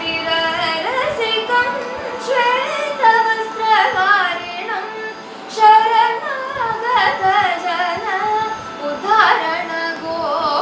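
A girl sings a Carnatic devotional kirtan solo, in phrases full of gliding and quivering ornamented notes, over a steady drone.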